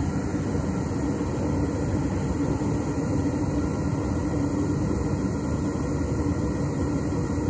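Propane burner of a homemade foundry firing steadily with an electric blower forcing air into it, a constant low rush with a faint steady hum; the flame is holding on the blower.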